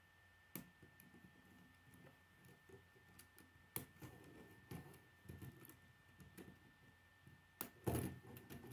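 Plastic K'nex rods and connectors clicking and knocking as they are handled and fitted together: scattered faint clicks, with a louder cluster of knocks near the end.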